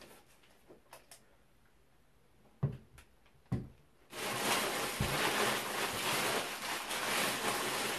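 Two dull knocks about a second apart as a turbocharger is set down on a wooden tabletop, then a steady hissing noise starts abruptly about four seconds in, with one more knock soon after.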